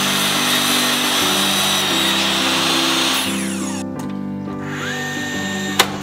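Power tools at work on wooden door trim over background music: a loud whirring for about three seconds that dies away, then a shorter whine that rises and levels off, and a sharp knock near the end.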